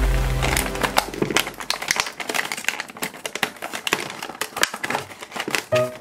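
Clear plastic packaging bag crinkling as it is opened and handled, with small plastic toy pieces clicking as they drop onto the table. A low music note fades out over the first two seconds, and music comes back in near the end.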